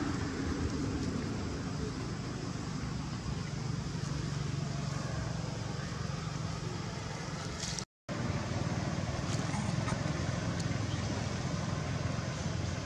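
Steady low rumble of outdoor background noise with no clear calls or knocks, cutting out for an instant about eight seconds in.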